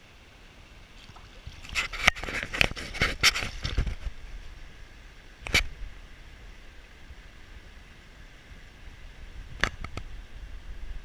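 Rubber waders splashing and sloshing in shallow stream water: a quick run of splashes in the first few seconds, then single splashes about halfway and near the end.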